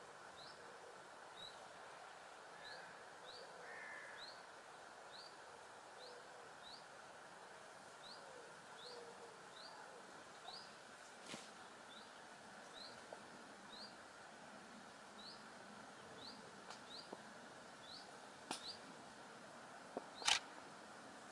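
A bird repeating a short, high, slightly rising chirp about twice a second over faint outdoor background, with a few sharp clicks, the loudest near the end.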